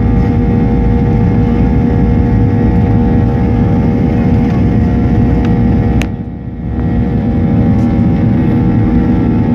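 Jet airliner's cabin noise while rolling along the runway: a steady low rumble with a constant engine whine. About six seconds in there is a sharp click and the noise briefly drops before returning to the same level.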